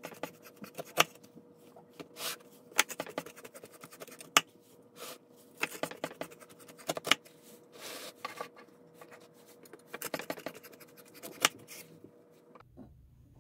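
A freshly baked homemade pizza being cut: a string of irregular sharp crackles and scrapes from the cutting blade going through the crust, stopping near the end.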